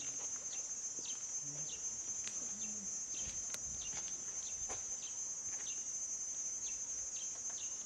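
Steady high-pitched insect drone, with short chirps every half second or so.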